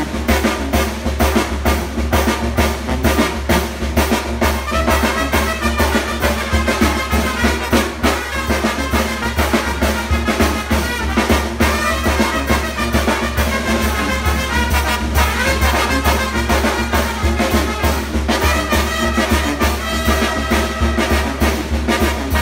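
Traditional Mexican banda playing live: sousaphone, trumpets and trombones over bass drum and snare, with a steady beat throughout.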